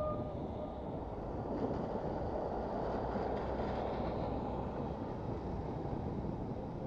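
Steady rolling and wind noise from a bicycle ride on wet paving, heard on the bike-mounted camera's microphone. It swells briefly around the middle.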